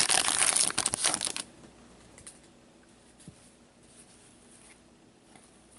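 Plastic foil wrapper of a trading card pack being torn open and crinkled for about a second and a half, then stopping, leaving a few faint clicks.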